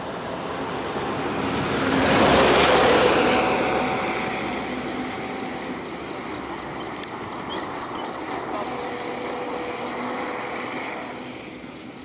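An engine passing by: a broad rushing drone with faint steady tones, swelling to its loudest about two to three seconds in and then slowly fading.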